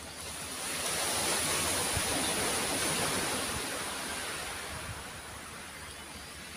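Sea waves surging onto a pebble beach: one swell of rushing surf builds about a second in and eases off after four seconds or so.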